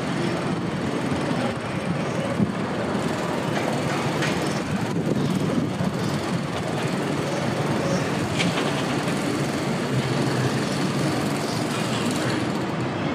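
Steady rumbling city noise with a few scattered clicks and knocks.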